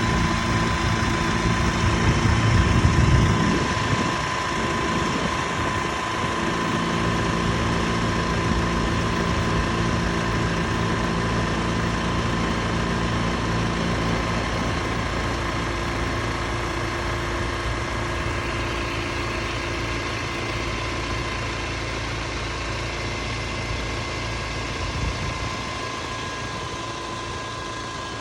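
Twin flat-six piston engines of a Cessna 310Q running at low power, heard from inside the cabin as a steady engine drone. A louder low rumble swells briefly about three seconds in.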